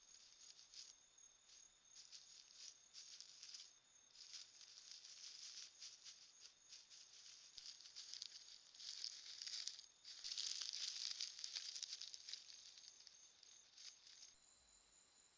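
Nine-banded armadillo rooting and scratching through dry leaf litter: faint, irregular rustling and crackling. It is busiest about ten to twelve seconds in and stops just after fourteen seconds.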